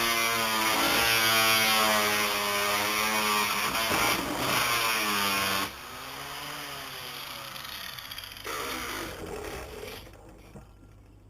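7-inch high-speed grinder whining as it grinds plywood stringer, its pitch wavering under load. About halfway through it is switched off and spins down with a falling whine, then runs briefly once more and fades.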